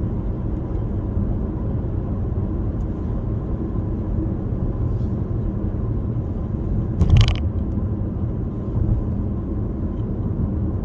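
Steady low road and engine rumble inside a moving car's cabin, with a single short knock about seven seconds in.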